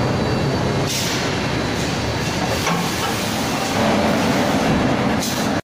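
Loud, continuous rumble and clatter of an automatic wheel-forging line at work, with a few sharper knocks about one, three and five seconds in.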